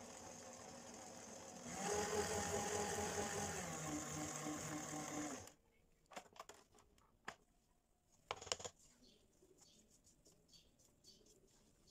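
Electric stand mixer motor running steadily as it beats butter, sugar and flour into sablé dough in a stainless steel bowl; it gets louder about two seconds in and stops suddenly about halfway through, switched off as soon as the flour disappears. After that, a few short scrapes of a silicone spatula against the bowl.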